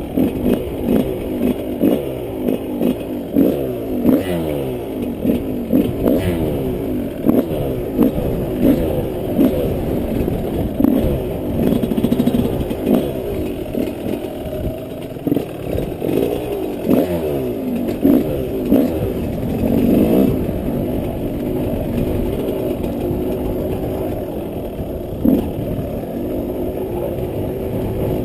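Yamaha 125 off-road motorcycle engine revving up and falling back again and again as the bike is ridden, with frequent knocks and clatter. The revs settle somewhat steadier in the last few seconds.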